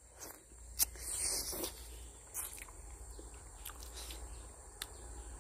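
A person biting into and chewing a fresh fruit close to the microphone. A sharp click and a short burst of crunching and rustling come about a second in, followed by scattered quieter clicks.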